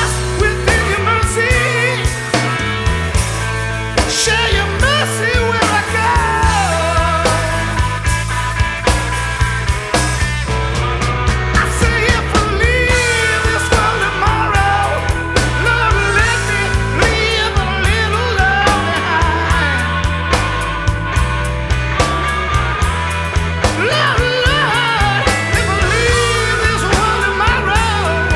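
Background music: a rock song with guitar, singing and a steady beat.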